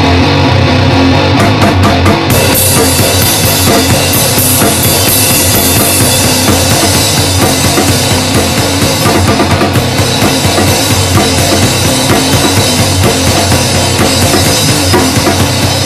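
Loud grindcore music: a fast, pounding drum kit with heavy bass drum under a dense wall of band sound, getting brighter about two seconds in.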